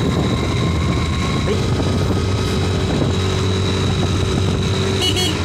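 Hero Gusto 125 scooter's single-cylinder engine running steadily at riding speed, with road and wind noise around it.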